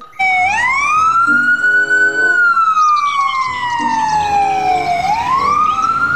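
Ambulance siren wailing: one slow rise in pitch, a long slow fall, then rising again near the end.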